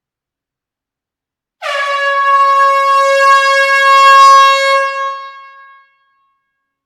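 Air horn sounding one steady blast of about four seconds, starting about a second and a half in and tapering off at the end, with the echo of a closed room.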